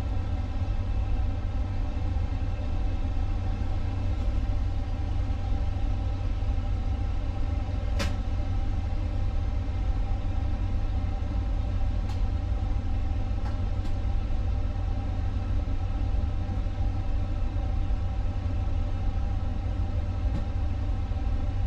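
Steady flight-deck background noise of an Airbus A350: a constant low rumble with a steady machine hum, as from the cockpit's ventilation and equipment cooling. A sharp click comes about eight seconds in, and a few fainter clicks follow later.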